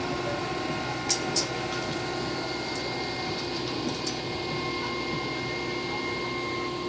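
Steady machine hum carrying several fixed tones, with a few light clicks about a second in and again around three to four seconds in.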